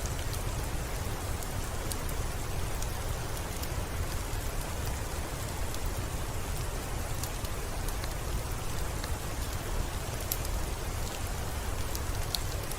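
Steady rain falling on window glass, an even hiss with a deeper low rumble, dotted with scattered sharp ticks throughout.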